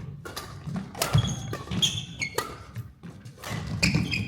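Badminton rally on an indoor court: several sharp racket strokes on the shuttlecock and thudding footsteps, with short high squeaks from court shoes on the floor.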